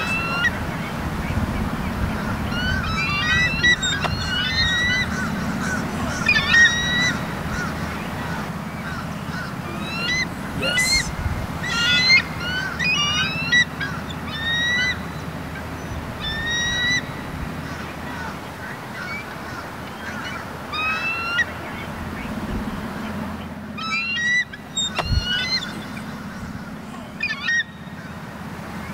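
Birds of prey (bald eagle and osprey) calling: about a dozen bursts of short, high, piping chirps, some notes sliding upward, over a steady low rumble.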